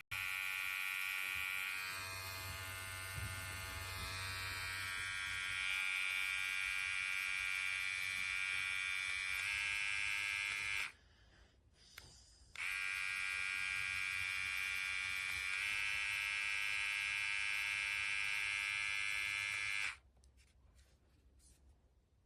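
TRIMX cordless beard trimmer running with a steady electric buzz. It is switched off about eleven seconds in, on again a second and a half later, and off near the end.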